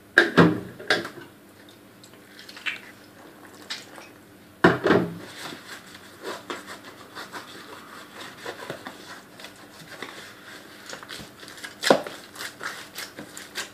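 Hands kneading chapati dough in a bowl, pressing and knocking it with the fists. Three dull thumps, at the start, about five seconds in and near the end, with soft rubbing and tapping of dough against the vessel in between.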